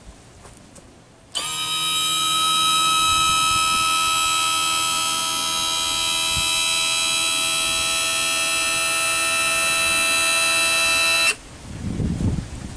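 Power trim and tilt motor of a 50 hp Mercury outboard running to raise the outboard: a steady electric buzz at one pitch that starts about a second in, lasts about ten seconds and cuts off suddenly.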